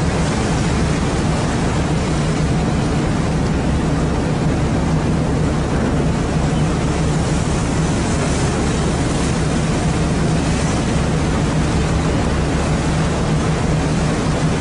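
Fishing boat's engine running steadily with a constant low hum, under a wash of wind and sea noise.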